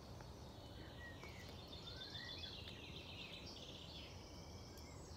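Faint birdsong at dawn: several birds chirping and trilling, with short rising whistles, over a low, steady background hiss.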